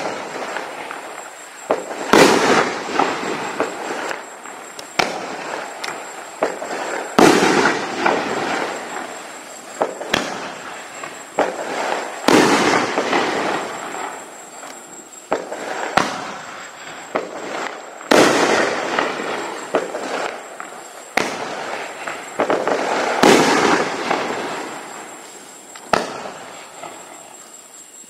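A 9-shot consumer cake of 3-inch shells (Raccoon Fireworks 'Hot as Hell') firing one shot about every five seconds. Each shot is a sharp launch thump, and about two seconds later a loud aerial break follows, with a long echoing tail that fades away. Five breaks are heard.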